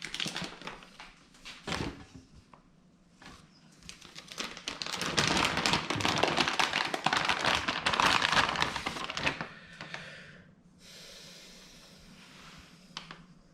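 Hands handling PC components and their packaging: scattered clicks and taps, then several seconds of dense rustling and crinkling, then a faint hiss with a couple of clicks near the end.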